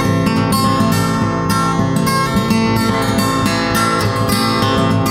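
Soundtrack music led by acoustic guitar, played as a steady stream of quickly plucked notes.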